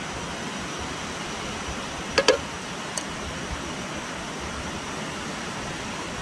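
Steady rushing background noise, with two sharp clinks in quick succession about two seconds in and a lighter click a second later.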